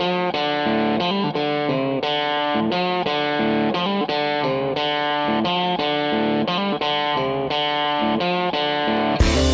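Background music led by an electric guitar playing a melody of held, pitched notes. Just before the end the mix opens up into a fuller, louder sound with sharp percussive hits.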